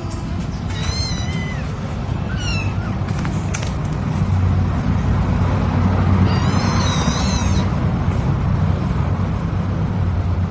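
A cat meowing several times, with one longer wavering meow about six and a half seconds in, over a steady low rumble.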